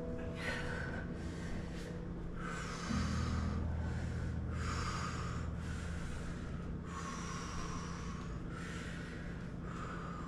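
A person breathing deeply and audibly in a slow, even rhythm, about six breaths a second or two apart, over a low steady hum.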